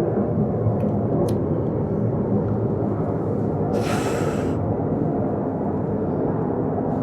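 Steady low rumble inside a cable-car gondola over the river, with a short hiss about four seconds in.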